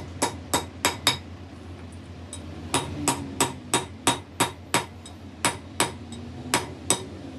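A hammer striking metal in a steady run of sharp blows, about three a second, pausing for about a second and a half after the first four. A low steady hum sits underneath.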